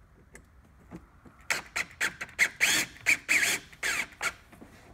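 Cordless drill-driver turning a floorboard screw in a run of short trigger bursts, its whine rising and falling in pitch with each burst.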